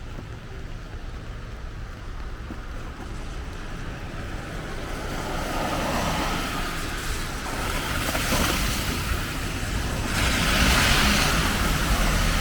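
Cars passing on a wet road, their tyres hissing. The hiss swells about halfway in and is loudest near the end.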